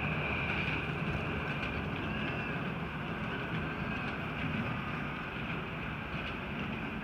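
7.25 in gauge Tinkerbell-class live steam locomotive running along the miniature railway track: a steady rumble with a continuous hiss.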